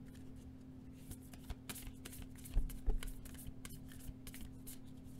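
Oracle cards being handled and drawn from the deck: a run of light card slides and ticks, with two soft knocks about two and a half seconds in as cards meet the table.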